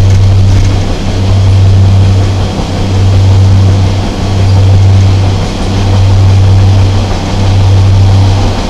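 Class 143 Pacer diesel railcar heard from on board: its underfloor diesel engine gives a loud, steady low drone over running noise. The drone swells and fades regularly about every one and a half seconds.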